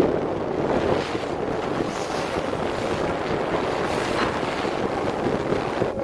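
Sea water rushing and splashing steadily against a ship's bow and hull, with wind buffeting the microphone.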